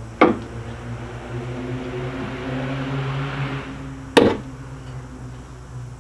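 A car hood being released and lifted: a sharp click of the hood latch just after the start, then handling noise as the hood goes up, and a louder sharp metallic click about four seconds in as the prop rod is unclipped from under the hood. A steady low hum runs underneath.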